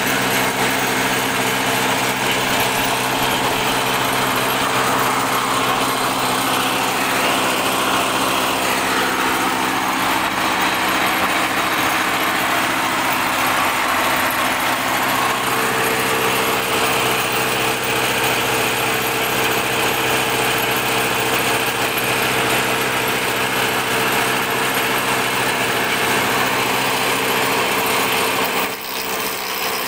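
Woodworking spindle moulder (router table) running steadily while a wooden board is fed past its cutter. The motor's hum holds steady under a cutting noise that changes as the board moves through, with a short dip near the end.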